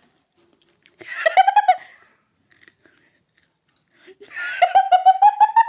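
A woman laughing in two bursts of rapid high giggles, the second longer and rising in pitch.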